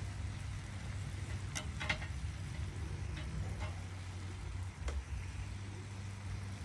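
Metal tongs clicking several times against the meat and grill while turning pork and chicken on a charcoal grill, over a steady low hum.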